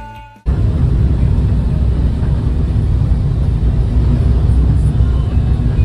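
Background music cuts off about half a second in. Loud, steady vehicle noise follows, a low rumble of engine, road and wind as a truck passes close by.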